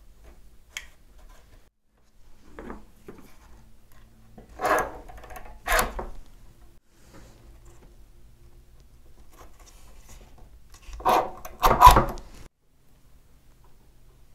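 Wood rubbing and scraping as thin wooden planking strips are handled and pressed against a wooden model ship hull, in several brief scrapes, the loudest of them near the end.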